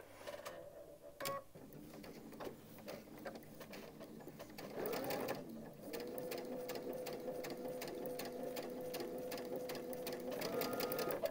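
Baby Lock Destiny sewing machine stitching a seam: slow, ticking needle strokes at first, then the motor whine rises about five seconds in and it runs steadily at speed.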